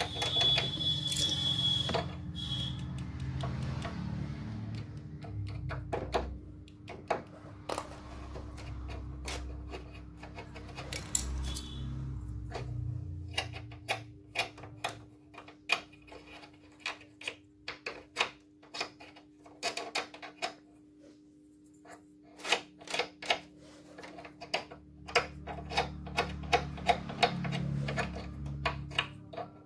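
Hard plastic parts of a copier paper-cassette lock clicking and tapping irregularly as the repaired piece is fitted and worked by hand, with a steady low hum underneath.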